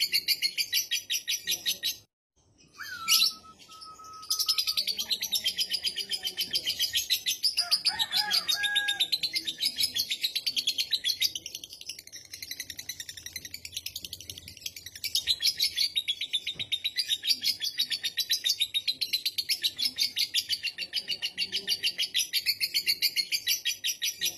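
Lovebird in long 'ngekek' chattering song: a rapid, high-pitched pulsing trill. It breaks off about two seconds in, a short whistled note follows, and the chatter then resumes unbroken to the end.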